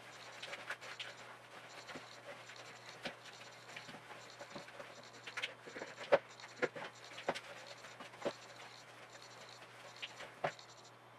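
Hands squeezing and working thick chocolate chip cookie dough in a plastic mixing bowl: soft irregular squishing with scattered knocks and scrapes, a few louder ones past the middle.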